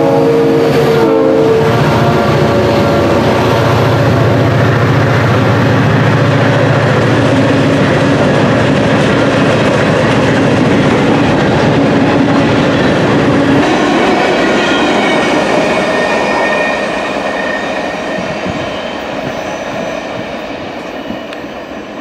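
A diesel freight train passing close by. An EMD locomotive's air horn cuts off about a second and a half in, and the locomotives' engines run as they go past. Then the freight cars roll by with wheel clatter that fades over the last few seconds.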